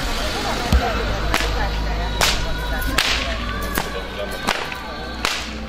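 A whip being cracked again and again: six or so sharp cracks a little under a second apart, over a low steady hum.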